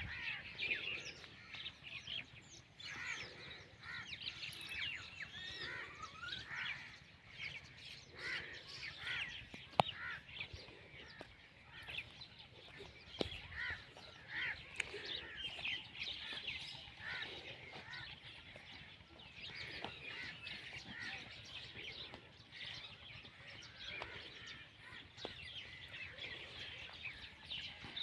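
Many birds chirping and calling in a continuous chorus of short, overlapping high calls, faint throughout.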